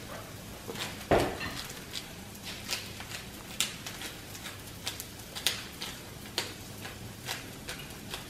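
Hand pepper grinder twisted over steak, cracking peppercorns in a run of short irregular clicks and crunches. A dull thump about a second in is the loudest sound.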